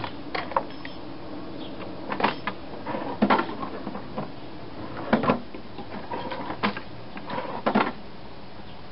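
Hand tools clicking and scraping on a Tecumseh lawn mower engine as the ignition coil is set against the flywheel and snugged down, with a gift card used as the gap gauge. Irregular sharp metallic clicks and knocks, the loudest about two, three, five and nearly eight seconds in, over a steady low hum.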